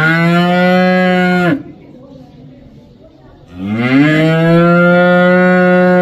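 A cow mooing twice. Each moo is long, rising in pitch at the start and then held level. The first ends about a second and a half in, and the second starts about three and a half seconds in.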